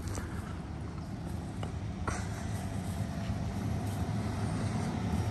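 Steady low outdoor rumble, with a faint click about two seconds in.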